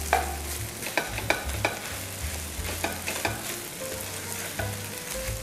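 Egg, cabbage and rice fried rice sizzling in a nonstick frying pan while a spatula stirs and turns it, with irregular clicks and scrapes of the spatula against the pan.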